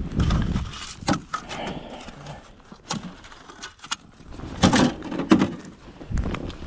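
Handling noises from gloved hands working with a fish, a ruler and a plastic sled on the ice: rustling with irregular knocks and clicks, loudest about five seconds in.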